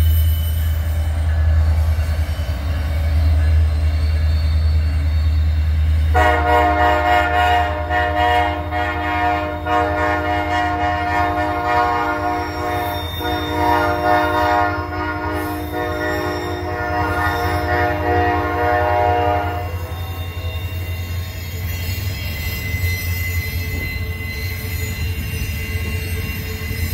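Freight train rumbling past, then a diesel locomotive's multi-chime air horn sounds a long chord from about six seconds in, lasting about thirteen seconds with a brief break partway through, over the continuing train rumble.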